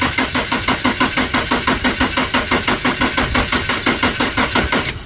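Car starter motor cranking the engine on power jumped straight to the starter, turning it over at an even rhythm of about six beats a second. The engine does not fire, because the ignition is switched off. The cranking stops near the end.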